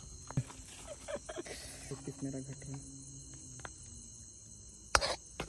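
Crickets chirping steadily in the background at night, with faint low voices and a single sharp knock near the end.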